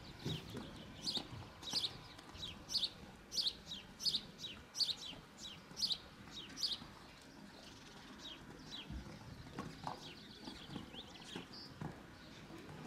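A bird chirping: a regular series of short, high notes, each falling in pitch, about one and a half a second, growing fainter about seven seconds in.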